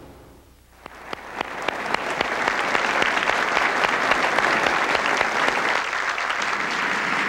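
A large seated audience applauding: a few scattered claps about a second in, swelling within a couple of seconds into full, steady applause.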